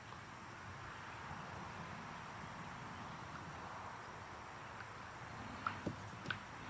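Quiet background with a steady, high-pitched insect drone and a faint hiss, and a few light clicks a little before the end.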